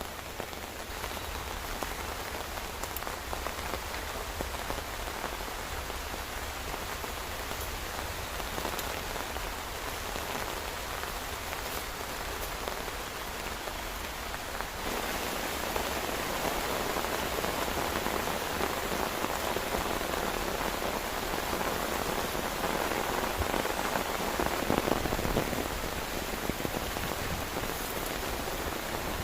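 Heavy rain falling steadily, turning abruptly heavier and louder about halfway through.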